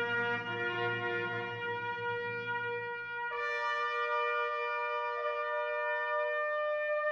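Slow music played on brass instruments, long held notes sounding together as chords. About three seconds in, a new, higher note comes in and the lower notes fade.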